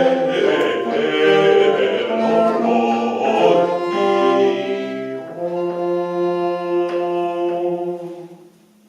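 A live early-music trio playing several sustained notes at once in slowly changing chords. It ends and dies away about eight seconds in.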